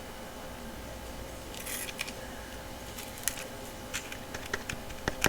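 Light handling noise: a few scattered sharp clicks and brief rustles over a steady faint hum. These are the sounds of buffing pads and their packaging being picked over by hand.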